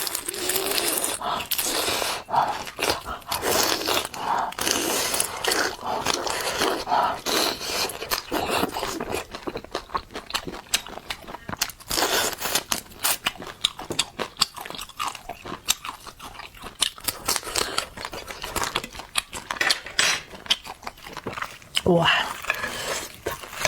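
Close-up crunching and chewing of crispy air-fried fish, with irregular crisp crackles as bites are chewed. Near the end there is a short "wow".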